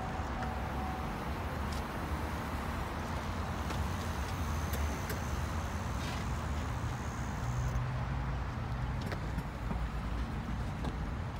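Steady low rumble of traffic and car engines, with a few faint scattered ticks.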